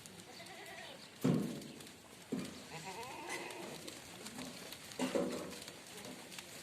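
Goats bleating, several separate calls, the loudest about a second in and another around five seconds in.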